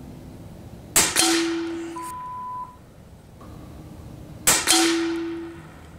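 Steyr LG110 PCP air rifle firing twice, about three and a half seconds apart: each shot is a sharp crack with a short ringing tone after it.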